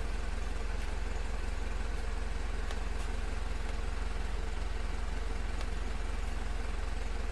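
Mitsubishi Fuso 4M50 four-cylinder common-rail turbodiesel idling steadily, an even low drone with no change in speed.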